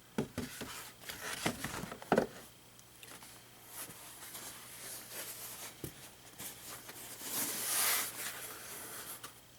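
Cardboard box and packaging being handled: a run of knocks and taps in the first couple of seconds, the loudest about two seconds in, then scraping and rustling that swells into a longer rasp near the end.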